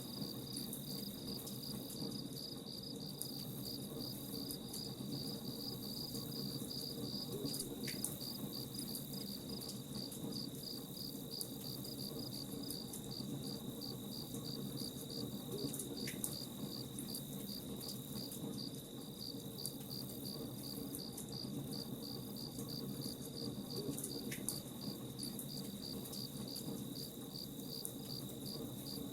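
Crickets chirping in an even, unbroken pulse over the low, steady crackle of a campfire.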